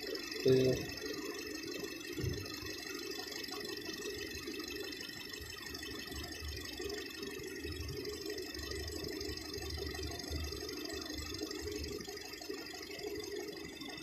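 Nissan Tiida's four-cylinder engine idling steadily with a misfire, during a cylinder power-balance test. A brief louder sound comes about half a second in.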